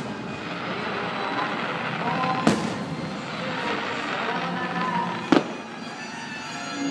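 Aerial firework shells bursting, two sharp bangs about two and a half and five and a half seconds in, over the fireworks show's music playing continuously.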